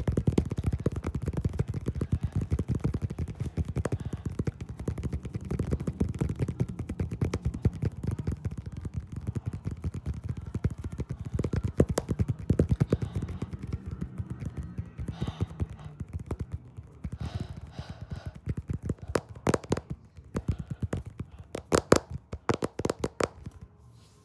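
Rapid tapping, many taps a second in a fast continuous patter, with fewer, sharper and louder taps near the end.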